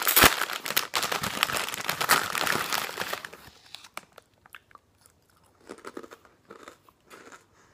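A person biting into and chewing crispy veggie toasted chips. Loud, crisp crunches come in quick succession for about the first three seconds, then give way to quieter, scattered chewing crunches.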